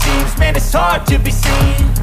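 Background hip-hop track: a steady beat with regular hi-hat ticks, bass notes sliding downward, and a vocal line over it.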